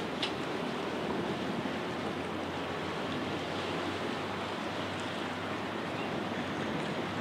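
Choppy river water and wind, a steady rushing noise with no distinct events.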